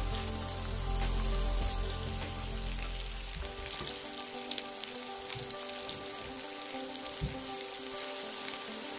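Onions and ginger-garlic paste frying in hot oil in a pot, with a steady crackling sizzle. Background music with held tones plays underneath.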